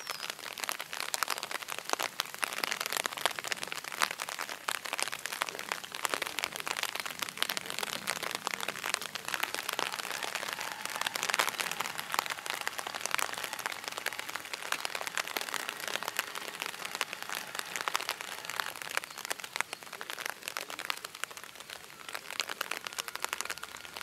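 Rain falling on an umbrella held over the microphone: a steady hiss dense with small drop ticks.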